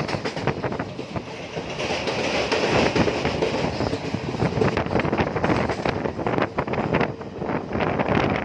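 Passenger train running along the track, heard from an open coach door: a steady rumble of wheels on rails with many quick clicks, mixed with wind noise on the microphone.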